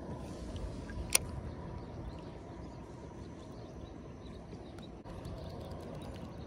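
A steady low outdoor rumble of wind and water, with one sharp click about a second in as a baitcasting rod and reel are handled, and a few fainter ticks after it.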